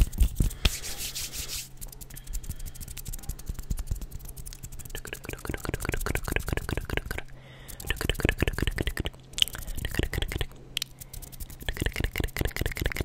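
ASMR hand sounds: fingers and palms rubbing and fluttering fast close to the microphone, making a dense, rapid crackle of rubbing and scratchy clicks.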